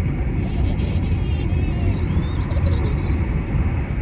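Steady low road and engine rumble inside a moving car's cabin, with faint high squeaks gliding in pitch about two seconds in.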